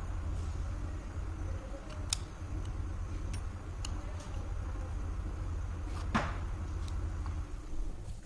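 Scattered sharp metal clicks and clinks of a spanner and screwdriver working on the bolts and axle of a metal differential teaching model, the two loudest about two and six seconds in, over a steady low hum.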